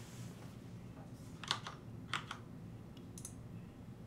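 A few faint clicks of computer keys, four in all starting about a second and a half in, over a low steady hum.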